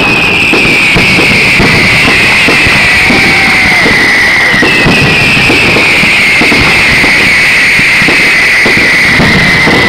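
Fireworks display going off without a break: dense, overlapping bangs and crackles of bursting shells, very loud throughout. A high whistling tone slowly falls in pitch twice over them, about five seconds each.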